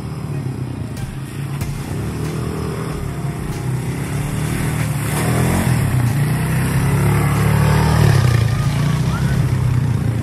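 Several quad bike engines running as the bikes ride through mud. They grow louder as the lead bike passes close about six seconds in, loudest around eight seconds.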